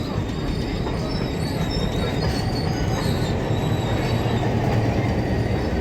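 Moving passenger excursion train heard from aboard: a steady rumble of the wheels on the rails, with a faint high-pitched wheel squeal over it.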